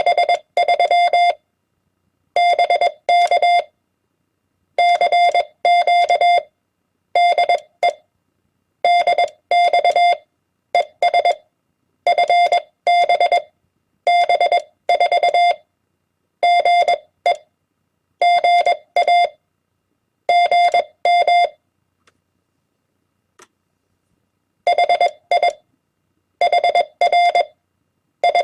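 Morse code (CW) tone keyed at 20 words per minute: a single steady beep switched on and off in dots and dashes, sending short amateur-radio words and abbreviations one group at a time with brief pauses between them. A longer gap comes about 22 seconds in before the sending resumes.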